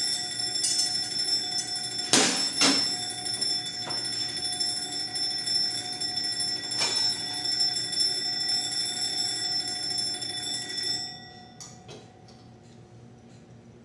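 Alarm clock bell ringing steadily for about eleven seconds, with a few knocks over it, then stopping; faint clicks follow.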